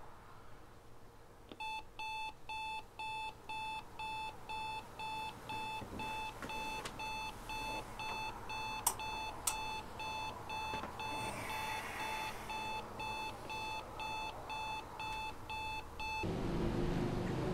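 Digital alarm clock beeping in a steady pulse, about two beeps a second, until it cuts off abruptly near the end. Two sharp clicks and some rustling come partway through.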